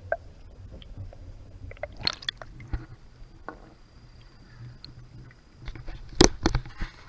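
Handling noise from a camera sealed in a waterproof housing, with wet, muffled clicks and knocks against a low rumble; two sharp knocks come a little after six seconds in.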